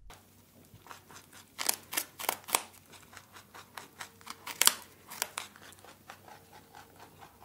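Rabbit chewing fresh leafy greens: quick, crisp crunches and snips of stems in irregular runs, loudest about two seconds in and again near five seconds.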